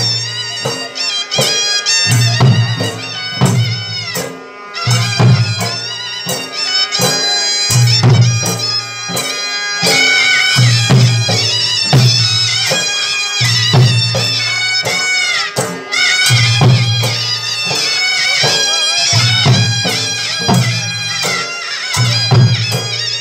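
Live folk band music: a reedy wind instrument plays an ornamented, wavering melody over a steady rhythm of barrel drums (dhol).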